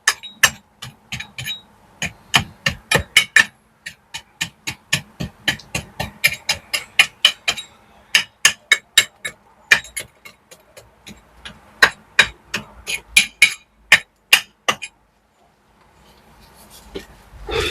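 Rapid, sharp hammer strikes knocking loose mortar and broken stone out of old brickwork, about three to four blows a second, stopping about 15 seconds in.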